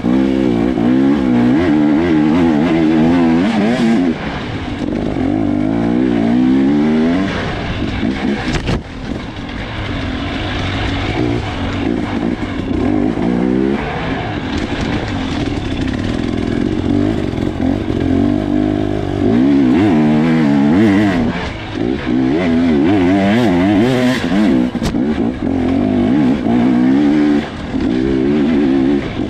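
Off-road racing motorcycle engine heard from the rider's helmet, revving up and down over and over as it is ridden through a woods race course, with a couple of sharp knocks.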